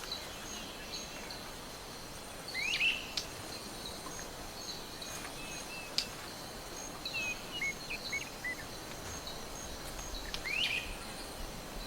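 Wetland ambience: short rising bird calls, one about two and a half seconds in and one near the end, with a few softer chirps in between, over a faint hiss and a faint, regularly pulsing high insect sound.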